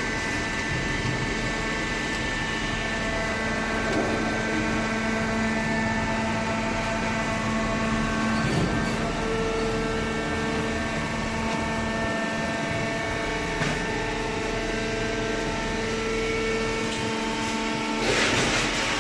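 Horizontal hydraulic baler running: a steady motor and pump hum with held whining tones that shift in pitch, a few brief knocks, and a louder, noisier stretch near the end.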